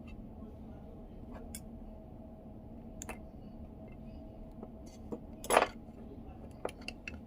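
Small parts and hand tools clicking and clinking on a work surface while a car's multimedia control knob is being taken apart or put back together. A few scattered clicks are heard, with one louder clatter about five and a half seconds in.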